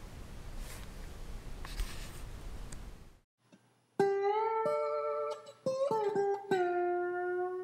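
A steady background hiss that cuts off about three seconds in, followed about a second later by plucked guitar music, its notes sliding and bending in pitch.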